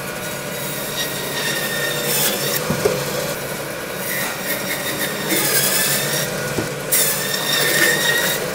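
Butcher's meat band saw running steadily and cutting through a beef front quarter, ribs and all. The blade squeals loudly three times as it bites through the carcass, about two, five and seven seconds in.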